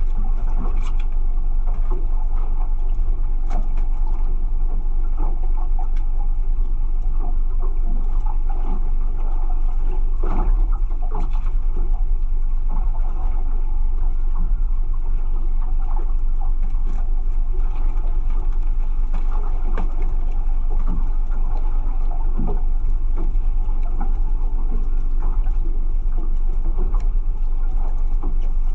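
Steady low rumble of a small boat's outboard motor running, with scattered light knocks.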